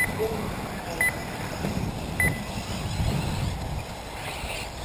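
Short electronic beeps, four of them about a second apart in the first half, over a steady low rumbling background.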